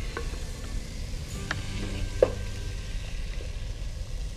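Vegetables and spice masala frying in a nonstick kadai as a ladle stirs them, with a few sharp clicks of the ladle against the pan, the loudest about two seconds in.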